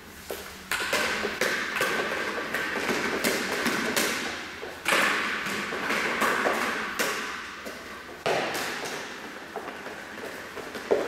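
Thuds of a rubber ball being kicked and bouncing on the floor, several hits a few seconds apart, each followed by a ringing echo, with lighter taps between them.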